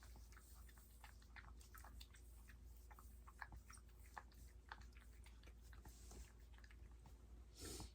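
Faint, irregular wet mouth smacks from a Yorkshire terrier mother licking and chewing at her newborn puppy. A brief, louder rustle comes near the end.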